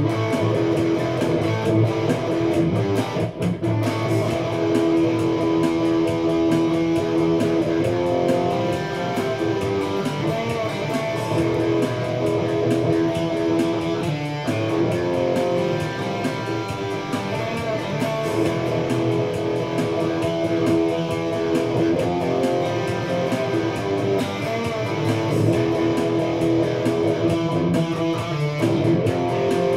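Electric guitar played continuously in an instrumental stretch of a song, with held notes and chords.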